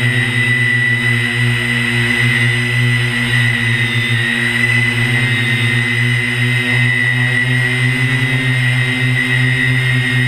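Multirotor drone's propellers and motors buzzing at a steady pitch while it hovers and drifts, heard through its onboard camera's microphone: a constant low drone with a thin high whine over it.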